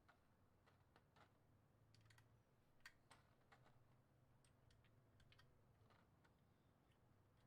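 Faint, irregular plastic clicks of SA-profile keycaps being handled and pressed onto a mechanical keyboard's switch stems, over a low steady hum.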